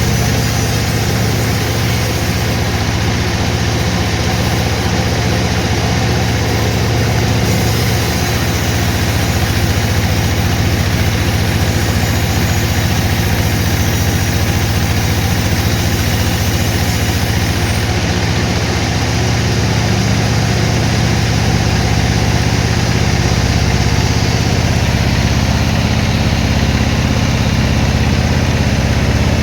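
Sawmill machinery running steadily with a loud, constant low hum and a noisy hiss over it.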